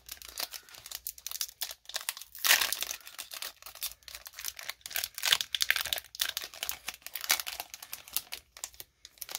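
Crinkling and crackling of a foil Pokémon trading-card booster pack wrapper, handled and torn open by hand, with a louder spell of crackling about two and a half seconds in.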